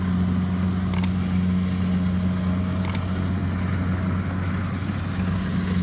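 Kubota combine harvester's diesel engine running steadily with a low, even hum. Two brief, sharp high-pitched clicks sound over it, about a second in and again about three seconds in.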